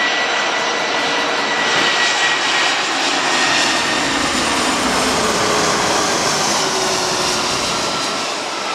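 Airbus A340-300's four CFM56 turbofans passing low overhead on landing approach: a loud, steady jet roar with a thin high whine that slowly drops in pitch as the airliner moves away.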